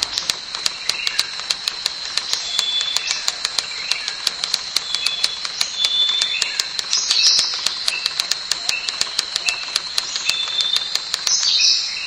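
Forest ambience: rapid, regular clicking, about five clicks a second, over a steady high whine, with short bird chirps scattered through and a louder cluster of chirps near the end.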